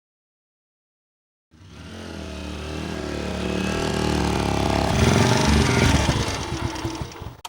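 Motorcycle engine running: it comes in about a second and a half in, grows steadily louder to a peak late on, then dies away near the end.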